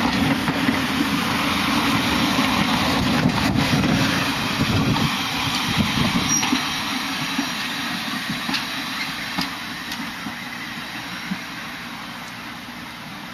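Railway passenger coaches rolling past on the track, their wheels rumbling with a few sharp clicks, the sound fading away as the last coach draws off.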